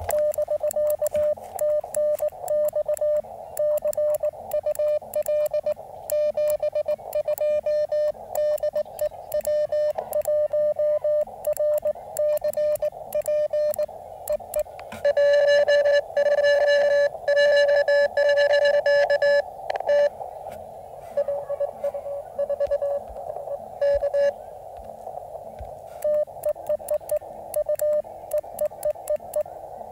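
Morse code (CW) from a portable ham radio transceiver: a single mid-pitched beep keyed into dits and dahs throughout. A louder, sharper run of keying comes about halfway through, and receiver hiss rises behind weaker keying in the second half.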